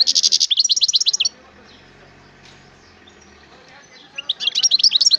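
A songbird singing in fast phrases of high, quickly repeated sliding notes with a buzzy trill. One phrase ends a little over a second in, and another begins about four seconds in after a short pause.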